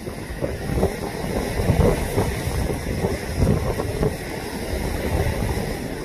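Gusty wind rumbling on the microphone over large lake waves breaking against a concrete seawall, a rough, irregular surging noise with no pause.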